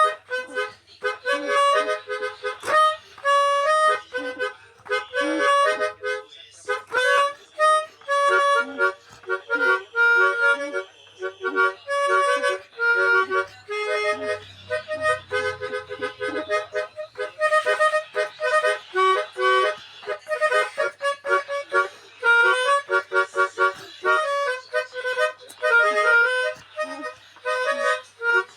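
Telolet basuri multi-tone bus horn playing a quick tune of short, reedy notes, several pitches often sounding together as chords.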